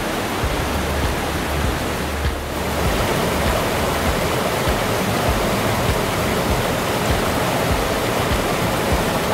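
Small rocky creek rushing and splashing as steady white water. A low rumble sits under the first two and a half seconds.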